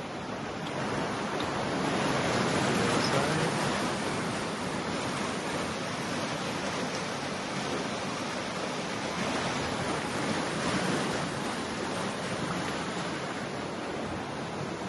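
Rushing creek water: a steady wash of moving water, a little louder a couple of seconds in.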